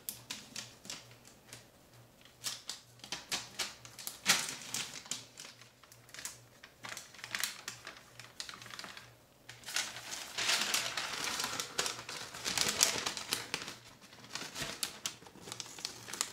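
Builder's paper rustling and crinkling while a pencil scratches along it, tracing an outline: a run of quick ticks and scratches, busiest and densest about ten to thirteen seconds in.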